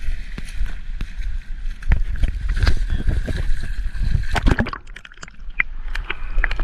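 Water sloshing and splashing with scattered knocks and clicks, just after a fish has struck an ultralight lure. A steady high whine runs underneath and stops about four and a half seconds in.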